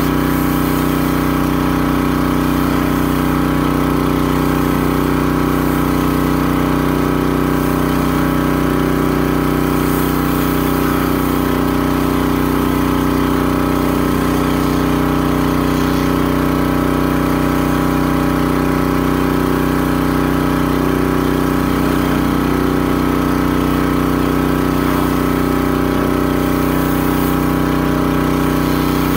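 Gas pressure washer engine running steadily at constant speed while it drives a rotary surface cleaner over concrete.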